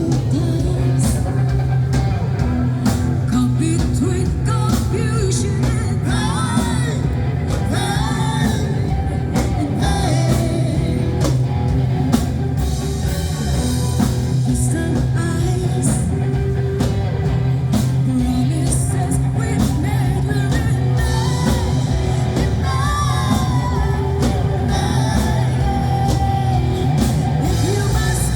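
Live band playing pop-rock with a singer, electric guitar, heavy bass and a drum kit keeping a steady beat.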